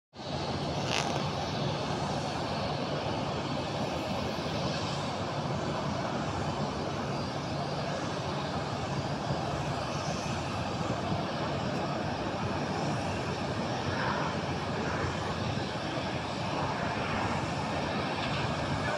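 Steady jet aircraft engine noise across an airport apron, holding at an even level throughout. A brief high-pitched sound comes about a second in.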